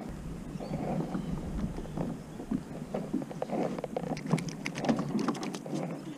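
Water splashing and dripping with irregular knocks and clicks, the sound of a fish being landed and handled on a plastic kayak; the sharp clicks cluster thickest about four to five seconds in.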